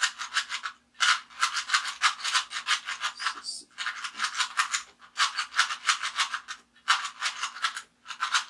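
Rubik's Cube being turned rapidly by hand, its plastic layers clicking and rattling in quick runs of one to two seconds with brief pauses, as the same move sequence is repeated over and over.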